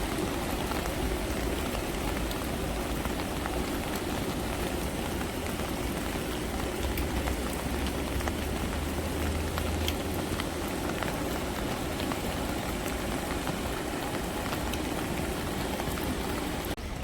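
Steady rain falling, with scattered raindrop ticks in an even hiss. A low rumble swells in the middle and fades, and the sound drops off suddenly just before the end.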